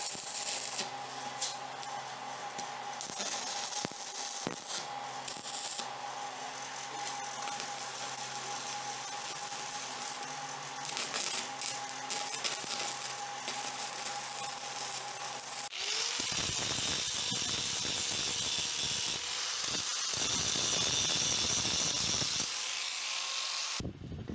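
Stick arc welder laying a bead on steel: a steady crackling hiss with a buzzing hum. About two-thirds of the way through, the sound changes abruptly to a louder, harsher rush, which cuts off just before the end.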